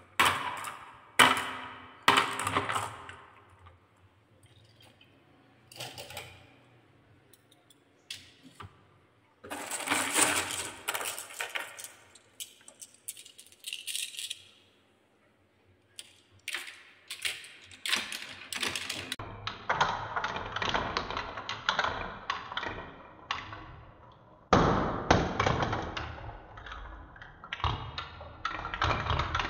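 Marbles clicking and clattering, first in scattered bursts as they are handled and dropped onto wooden tracks. From about two-thirds of the way in, a batch of marbles rolls down a wooden marble run with spiral tracks, giving a dense, unbroken rattling and clacking.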